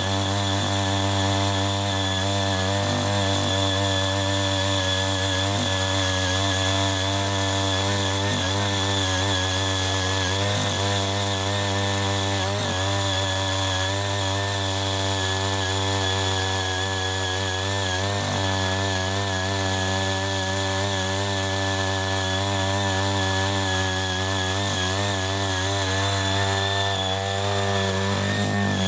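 CHING YEE CY80 mini power tiller's small engine running steadily under load as its rotary tines churn through weedy soil. The engine note wavers slightly as the tines bite, with occasional faint knocks from soil and roots.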